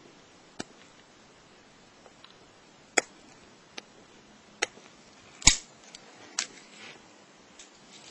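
Lock pick and tension wrench working a Corbin pin-tumbler padlock: a series of sharp, separate clicks about a second apart, the loudest about five and a half seconds in.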